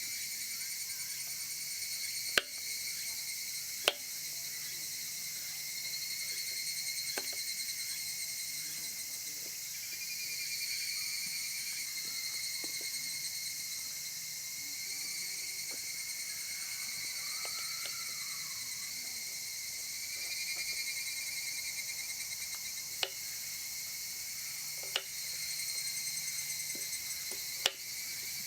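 A steady chorus of summer insects chirring in high bands, swelling and easing every few seconds, with a handful of sharp clicks or knocks scattered through it.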